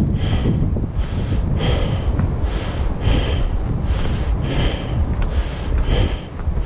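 A hiker's breathing close to the microphone while walking uphill: a hissy breath in and out about every second. Wind rumbles on the microphone underneath.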